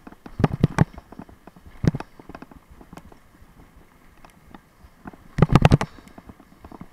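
Bicycle jolting over paving and bumps, its frame and handlebar-mounted gear rattling: short bursts of sharp clattering knocks, one burst about half a second in, a single knock near two seconds, and the loudest burst about five and a half seconds in.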